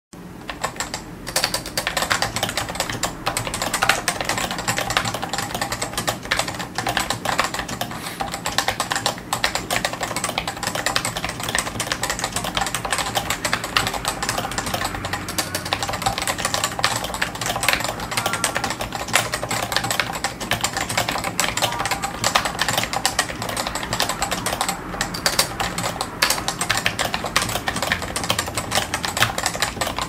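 Continuous fast typing on a CM Storm Novatouch TKL keyboard with Topre capacitive switches and PBT keycaps: a dense, unbroken run of keystrokes that starts a moment in.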